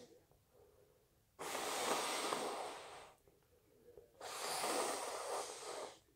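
A person making two long, forceful, noisy rushes of breath through the nose and mouth, each lasting well over a second. The first starts abruptly about a second and a half in; the second comes about a second after the first ends.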